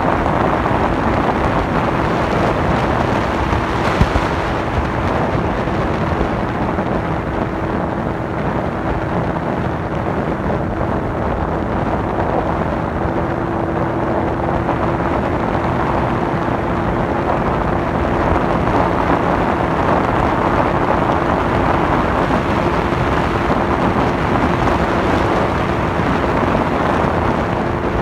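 Bass boat's outboard motor running steadily under way, with a constant hum and wind buffeting the microphone. A single brief knock about four seconds in.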